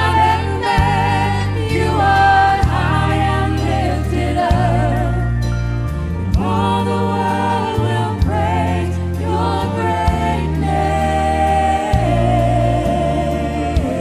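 A woman singing a gospel worship song into a microphone, her held notes wavering, over a live band with piano and drums and sustained low notes that change every second or two.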